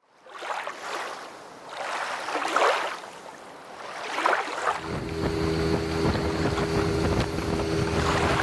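Wind gusting against the microphone in swells. About halfway through it gives way to a boat's outboard motor running at a steady pitch, under wind and water noise.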